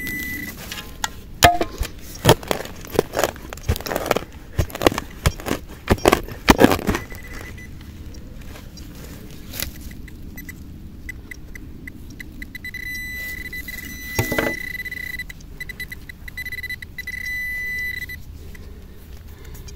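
A digging tool chops into the ground in a quick run of about a dozen sharp strikes. Then a metal detector's high buzzing signal tone sounds, pulsing at first and then held steadily for several seconds, marking a metal target in the hole, which turns out to be a small piece of sheet metal.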